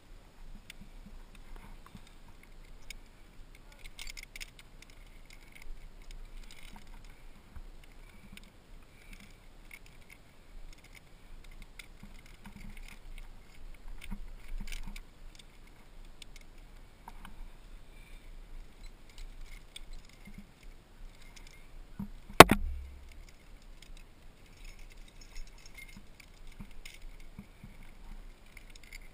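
Climbing rack gear (aluminium carabiners and spring-loaded cams) clinking and jangling softly while a cam is handled and placed in a rock crack. There is a single sharp knock about two-thirds of the way through.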